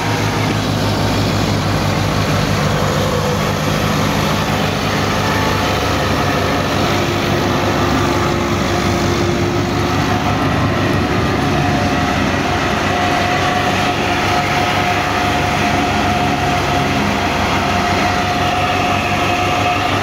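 A Massey Ferguson 285 tractor's four-cylinder diesel runs steadily under load, driving a threshing machine that clatters and rumbles as straw sheaves are fed into it. A steady whine from the machinery joins about halfway through.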